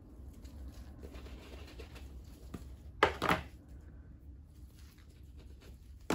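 Clear plastic tubs handled with gloved hands: soft rustling, then two sharp plastic clicks close together about three seconds in, and another click near the end.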